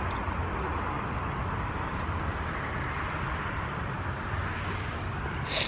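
A small 100 cc Daelim motorbike running at a steady pace, its engine hum mixed with wind rushing over the microphone while riding. A brief rustle comes near the end.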